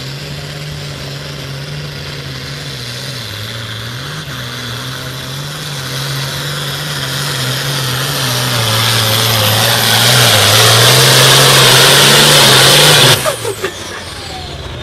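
Modified diesel farm tractor pulling the weight sled at full throttle, its engine note wavering under load while a hissing roar builds louder over several seconds. The sound cuts off abruptly about thirteen seconds in as the throttle is shut at the end of the pull.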